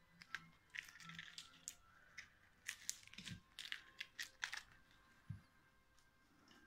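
Lop rabbit biting and chewing crisp napa cabbage leaves: a run of faint, irregular crunches and tearing snaps.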